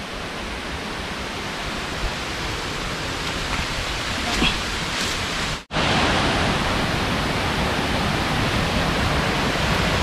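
Steady rushing of a nearby waterfall, an even wash of falling water that grows slightly louder as it is approached. It cuts out for an instant a little past halfway.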